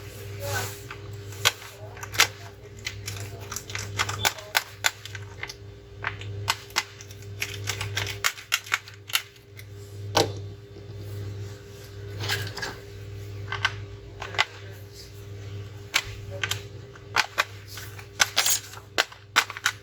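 Irregular sharp clicks, snaps and taps of a Dell 3521 laptop being taken apart by hand: plastic case parts, battery and screws knocking and clicking. A steady low electrical hum runs underneath.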